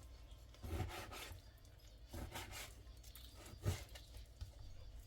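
Raw chicken being cut into small cubes on a cutting board: a few separate scraping cuts and light knocks of the blade against the board.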